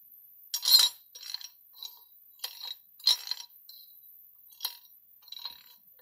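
Circa-1920s Yale combination safe lock, its brass wheel pack clicking and clinking as the wheels are turned: about eight sharp, irregular metallic clicks, the loudest near the start.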